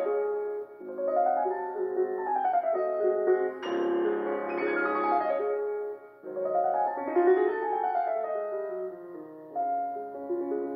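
Background piano music: flowing runs of notes that rise and fall in waves about every three seconds.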